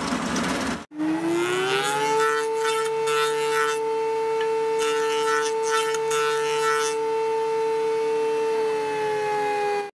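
Noisy machine sound for about the first second, then a table saw motor spins up, its whine rising in pitch for about a second and then holding steady. Light scratchy ticks come and go over the whine in the middle.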